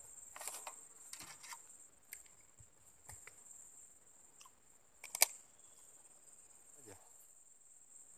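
Steady, high-pitched insect chirring, with scattered small clicks and rustles from handling close to the microphone; the sharpest click comes about five seconds in.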